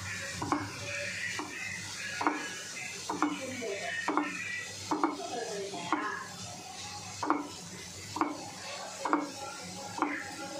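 Spatula stirring and tossing chopped vegetables in a non-stick frying pan, knocking and scraping against the pan about once a second, over a low sizzle of frying.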